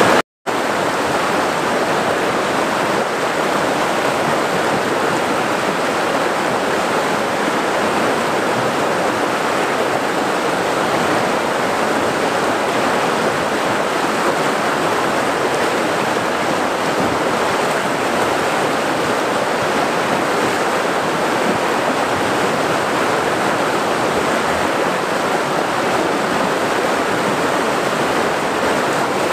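Fast-flowing river water rushing over rocks in a steady, continuous churn. It drops out for a fraction of a second near the start.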